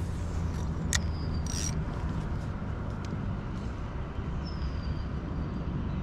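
Steady low wind rumble on the microphone, with a sharp click about a second in as the spinning rod is cast. A spinning reel is then cranked to bring the lure back.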